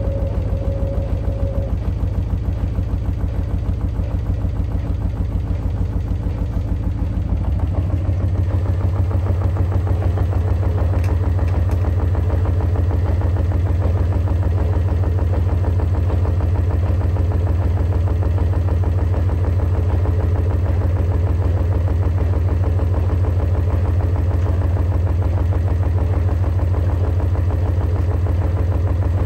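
Hotpoint Ariston Aqualtis washer-dryer drum spinning fast with the door open: a steady low machine hum with a fast pulsing beat from the rotating drum, which gets louder and deeper about seven seconds in.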